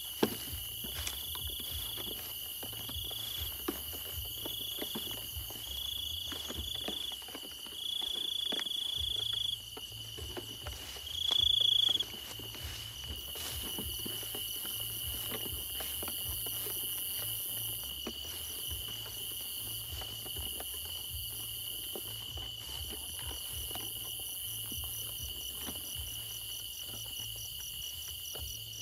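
Crickets and other night insects calling in a field: a steady high trill throughout, with a second insect calling in separate bursts over the first twelve seconds, loudest near twelve seconds in, and a fast pulsing trill joining in later. One sharp click right at the start.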